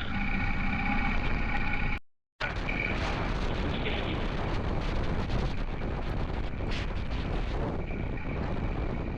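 Motorcycle engine running with steady tones, cut off suddenly about two seconds in; after a short silence comes a steady rush of wind buffeting the microphone while riding.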